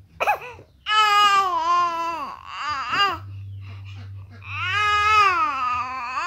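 Infant fussing and crying: a short whimper, then two long drawn-out wails that rise and fall in pitch, with a brief lull between them.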